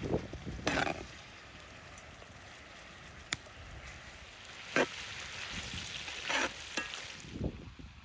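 Chunks of lamb sizzling in a wide metal pan, stirred with a slotted metal skimmer that scrapes and clinks against the pan four times. The sizzling drops away near the end.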